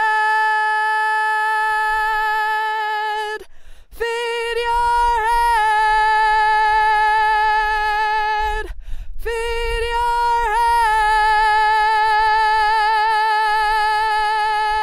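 Solo female voice singing a cappella, holding three long notes separated by brief breaths. The last note is the longest and wavers with vibrato.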